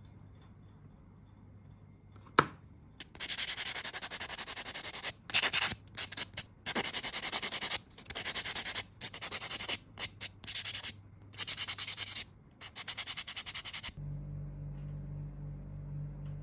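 White nail buffer block rubbed quickly back and forth over a fingernail with a clear extension tip, in runs of rapid strokes with short breaks, buffing the whole nail surface. A single sharp click comes about two seconds in, before the buffing starts; soft music comes in near the end.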